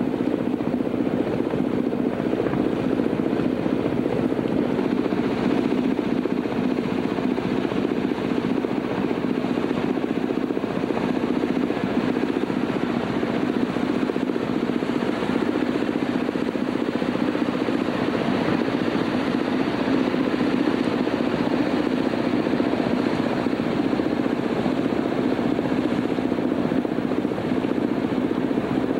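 Steady, unchanging engine drone, most likely a boat's motor running at constant speed.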